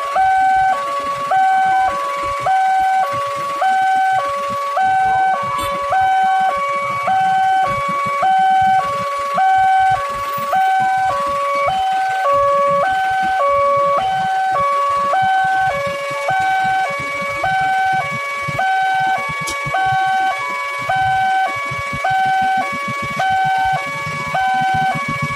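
Electronic railway level-crossing warning alarm sounding continuously, alternating a higher and a lower tone about every half second. A low rumble runs underneath.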